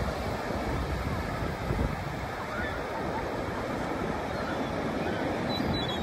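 Ocean surf breaking and washing up the beach with wind buffeting the microphone in a gusty low rumble. A faint high gull call comes near the end.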